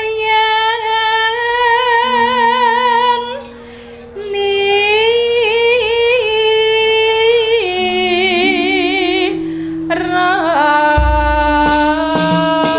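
A Javanese sinden singing a solo tembang in the Dhandhanggula metre, long held notes with wavering ornaments and slides, over steady instrument tones. Near the end, drum strokes come in at an even beat.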